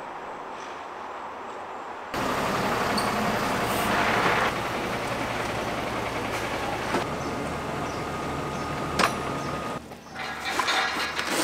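Steady, noisy din of running machinery that jumps louder about two seconds in and changes abruptly near seven and ten seconds, with a thin steady whine for a couple of seconds and a sharp click just before the last change.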